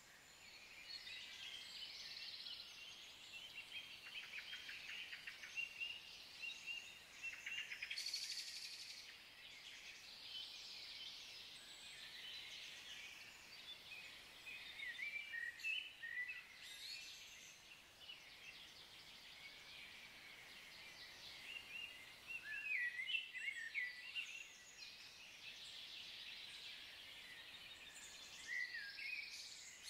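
Faint woodland birdsong: small birds chirping and trilling, with a brighter burst of song about eight seconds in and busier calling past the twenty-second mark.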